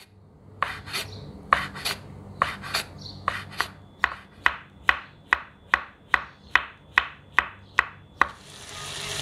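Chef's knife slicing button mushrooms on a wooden cutting board: a steady run of sharp knocks of the blade on the wood, at first in pairs, then about two to three a second. Near the end a frying sizzle fades in.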